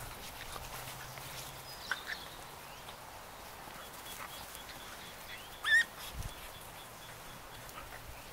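Glen of Imaal Terrier puppy giving one short, high-pitched squeak just before six seconds in, with a fainter squeak about two seconds in, while the puppies play-wrestle with their mother.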